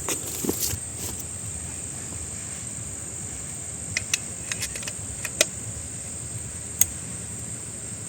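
Insects droning steadily at a high pitch, with a few sharp clicks in the second half, the two loudest a little over a second apart.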